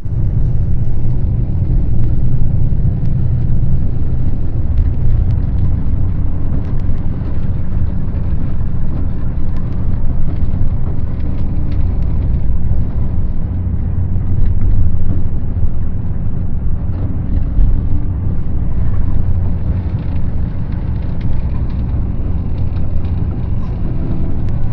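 A moving bus heard from inside its cabin: a steady low rumble of engine and road noise, wavering slightly in loudness.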